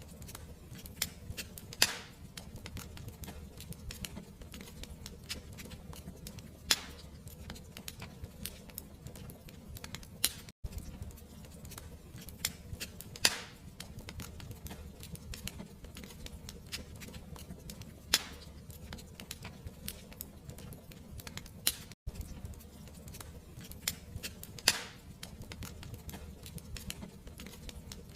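Fireplace crackling: dense small crackles and sharper pops every few seconds over a low steady rumble. The sound cuts out for an instant twice, about ten seconds in and again about twenty-two seconds in.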